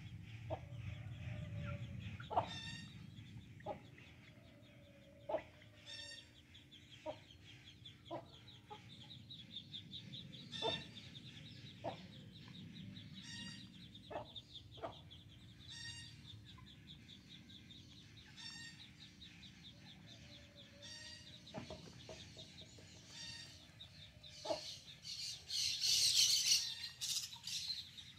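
Domestic chickens clucking now and then as they peck at feed, short single clucks every second or two. A steady high trill runs underneath, and a louder burst of shrill high calls comes near the end.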